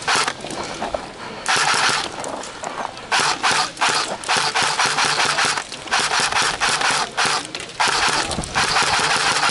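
Airsoft electric guns firing full-auto bursts: about ten rattling strings of rapid shots, each half a second to a second long, with short gaps between.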